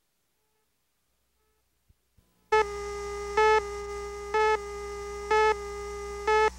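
Countdown leader tone: a steady buzzy tone with a louder beep about once a second, over a low hum. It starts about two and a half seconds in.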